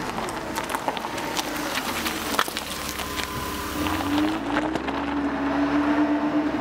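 A vehicle engine running, with scattered clicks and ticks over a low hum; a steady tone comes in about four seconds in.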